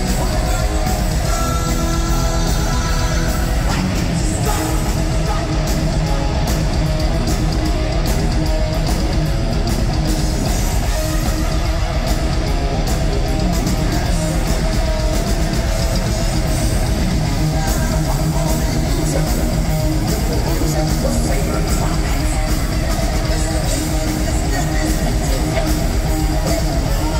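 A heavy metal band playing live at full volume: distorted electric guitars and fast, pounding drums, with lead vocals over them, recorded from the crowd.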